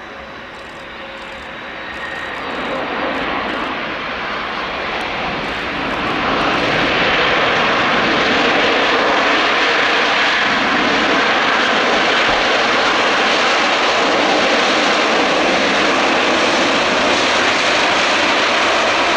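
Antonov An-124-100's four D-18T turbofan engines running on the runway. The engine noise grows louder over the first seven seconds or so, then holds steady and loud.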